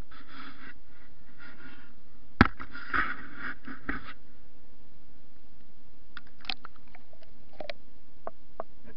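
Handling noise from a small camera being moved about: bursts of rubbing and a few sharp knocks in the first half, scattered small clicks later, over a steady faint electrical hum.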